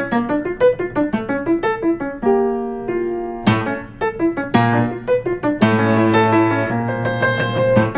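Piano playing an instrumental introduction: a repeating broken-chord figure of single notes, with longer held chords and deeper bass notes around the middle.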